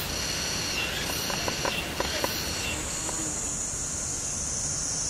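A steady, high-pitched chorus of insects calling in the forest. About three seconds in it changes to a single higher, unbroken drone, with a few faint ticks before that.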